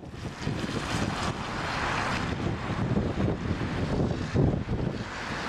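Storm wind buffeting the microphone with a ragged low rumble, over the rushing noise of heavy surf that swells and fades.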